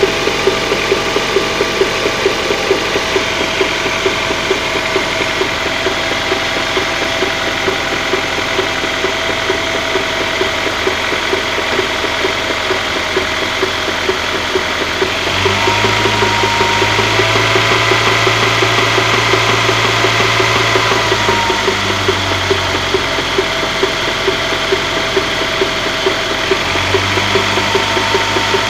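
Honda F22B1 four-cylinder engine idling with a regular knock, which the owner takes for the rear balance shaft with play in it. About halfway through, a steady deeper hum comes in for about six seconds and drops out again, then returns near the end.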